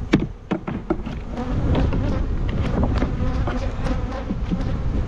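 Honey bees buzzing around an open hive, the buzz growing louder about a second and a half in, with a scatter of sharp clicks and knocks from hive parts being handled.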